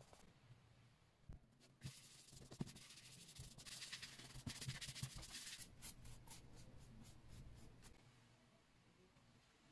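Faint rubbing of a cloth pad working leather-care balm into a leather wallet panel, a soft hiss with quicker back-and-forth strokes, about four a second, in the second half.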